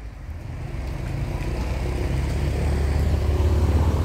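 Car engine and road rumble, growing steadily louder as the vehicle gathers speed.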